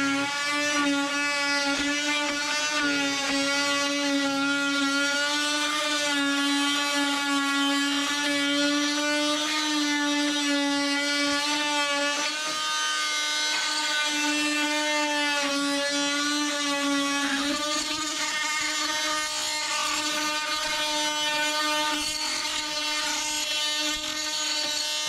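Fein oscillating multi-tool running steadily as it cuts away plastic trim, a continuous buzz whose pitch wavers slightly now and then.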